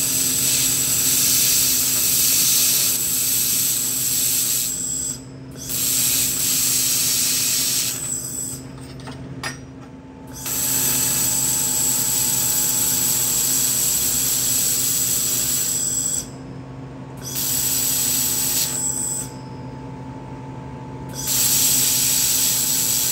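Handheld fiber laser welder with automatic filler-wire feed welding carbon steel: a loud hiss in five stretches of two to six seconds each, one for each press of the trigger. A steady hum from the machine runs underneath, and there is a sharp click in one of the gaps.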